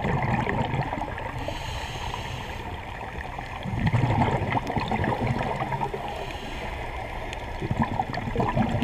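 Scuba divers' exhaled air bubbling from the regulator, heard underwater through the camera housing: a steady crackling gurgle that swells into a louder bubbling rush about every four seconds, with each breath.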